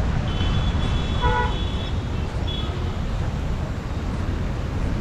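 Road traffic with vehicle horns over a steady low rumble. A high-pitched horn sounds for about a second and a half near the start, a lower horn toots briefly just after a second in, and a short high beep comes about halfway through.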